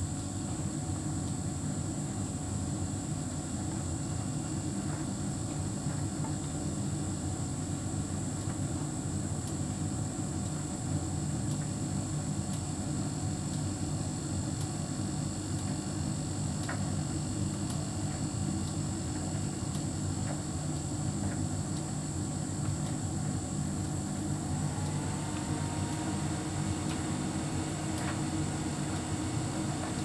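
Hotpoint heat pump tumble dryer running steadily, with a low hum from the drum, fan and compressor and a few faint ticks.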